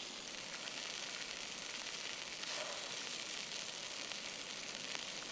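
Beef steaks sizzling steadily on hot stones over an open fire.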